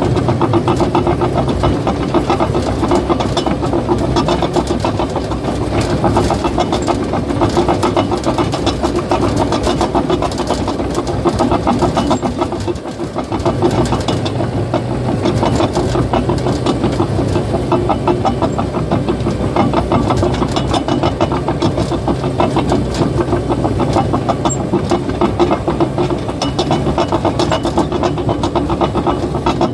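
Caterpillar bulldozer's diesel engine running steadily, with a dense, rapid clatter from its steel tracks. It eases off briefly about halfway through.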